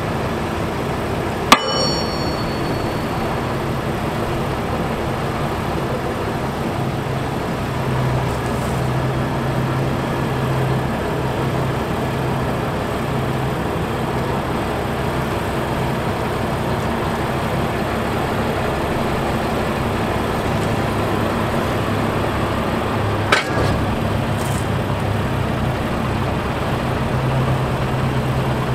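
Caterpillar C9 diesel engine running steadily, driving the rolloff truck's hydraulic hoist as the hoist frame is lowered; the low hum swells at times under hydraulic load. A sharp metallic clank with a brief ring comes about a second and a half in, and a smaller knock comes later.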